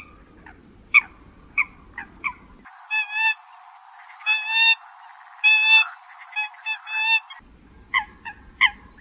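Recorded Eurasian coot calls played as a bird-trapping lure. Short, sharp calls come about two a second at the start and again near the end. In the middle they give way to a thinner-sounding stretch of longer calls in groups.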